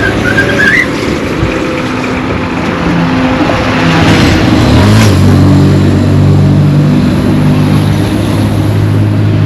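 Motor vehicle traffic passing close by: a rush of engine and tyre noise swells about four to five seconds in, and a low engine hum then holds steady.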